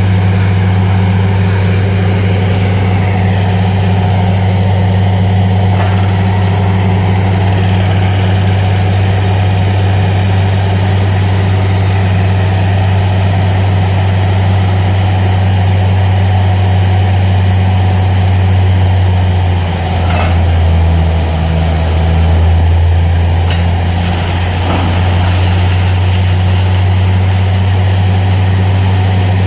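Heavy engine of a truck-mounted borewell drilling rig running steadily with a deep, even hum, briefly dropping in pitch and loudness about two-thirds of the way through before settling back.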